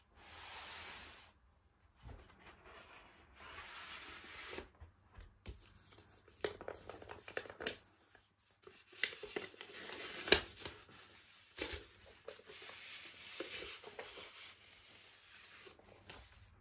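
Paper inner sleeve rustling and scraping as a vinyl LP is handled and slid out of it, with a few sharp taps of the record and sleeve against the cardboard, the sharpest about two-thirds of the way through.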